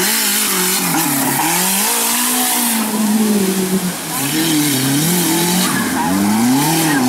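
Off-road buggy engine revving hard, its pitch climbing and dropping again and again, as the spinning tyres dig in and throw up mud and sand.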